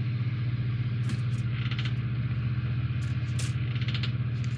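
Steady low mechanical hum, with a few light clicks and rattles of a plastic model-kit parts sprue being handled about a second in and again around three to four seconds in.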